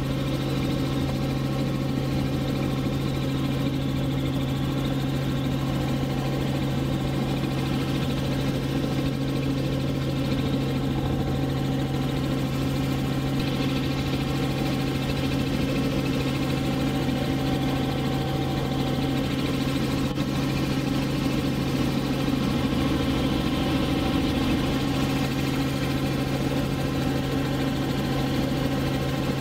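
Helicopter in flight heard from inside the cabin: a steady drone of engine and rotors, with a strong low hum and a stack of steady higher tones.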